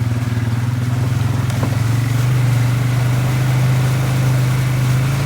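Polaris Sportsman 570 ATV's single-cylinder engine running steadily under way, a constant low hum.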